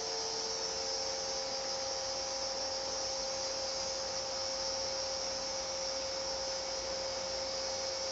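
Portable shower spraying water from its head inside a shower tent and falling into the base tub, a steady hiss, over the steady hum of the small 12-volt DC water pump that feeds it.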